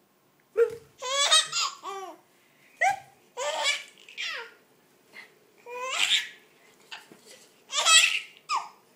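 A baby laughing in several high-pitched, breathy bursts of giggles, with short pauses between the fits.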